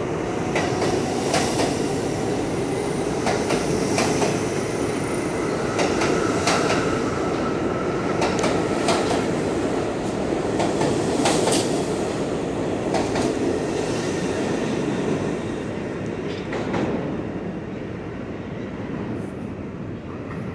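New York City subway train pulling out alongside the platform: a steady rumble with wheels clicking over rail joints and a brief wheel squeal near the middle. It fades as the last car clears the station near the end.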